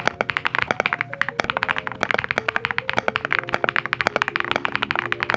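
Fast, continuous typing on a mechanical keyboard fitted with XVX Berry Kiss MOA-profile keycaps: a dense run of key clacks, about eight to ten a second, during a typing test of the keycaps' sound.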